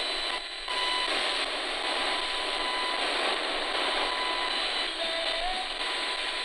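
Spirit Box in FM mode scanning through radio stations, giving a steady hiss of static with a brief drop-out just under a second in and faint snatches of tones between stations.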